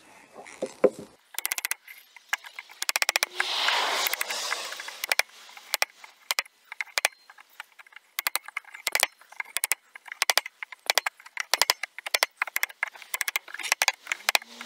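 Hammer tapping a narrow chisel into a wooden floorboard to cut away a notch: quick runs of sharp taps with short pauses between them. A rougher rasping stretch comes about three and a half seconds in.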